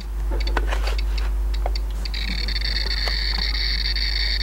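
Handheld radiation meter registering gamma and beta radiation from a thorium-232 lens: a knock at the very start as it is handled, then irregular single clicks of counted particles for about two seconds, then a steady high-pitched beep tone from about two seconds in. A low hum lies under it throughout.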